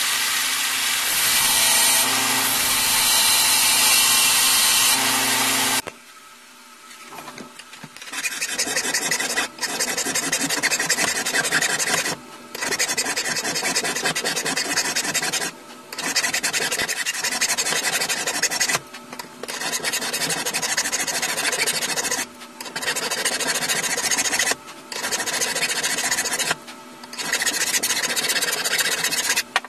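A belt grinder running for about the first six seconds, with a steady motor hum under the noise of steel being ground. Then a flat hand file is worked across a round steel rod clamped in a bench vise, in stretches of a few seconds broken by short pauses.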